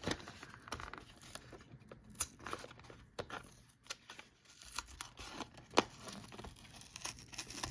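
Blister-card toy packaging being torn and pried open by hand: scattered crinkling and tearing of cardboard and plastic, with a few sharp clicks, the loudest about two seconds in and again near six seconds.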